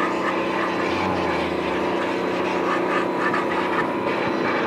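Pressure washer running steadily: its motor hums at a constant pitch while the water jet sprays.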